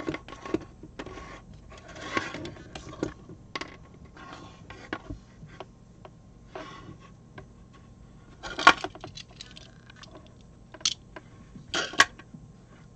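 Hands working the stripped end of a Cat5e/6 Ethernet cable: irregular rustling and scratching of the plastic jacket and the twisted wire pairs being untwisted, with a few sharp clicks, the loudest about two-thirds of the way in and near the end.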